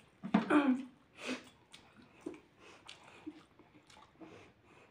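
Close-up eating sounds of rice and greens eaten by hand: chewing, soft squishes and scattered small clicks. A short voiced exclamation comes about half a second in, and a fainter vocal sound follows a moment later.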